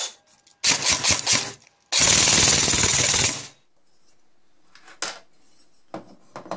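Gunfire sound effect: a few sharp shots, then a continuous burst of automatic fire lasting about a second and a half. After it, a few light metallic clicks as the halves of an airsoft gearbox shell are handled.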